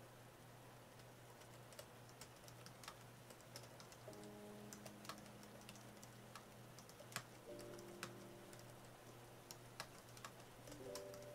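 Irregular key clicks of typing on an AlphaSmart portable word processor keyboard. Soft piano music plays beneath, with held chords coming in about four, seven and a half, and eleven seconds in.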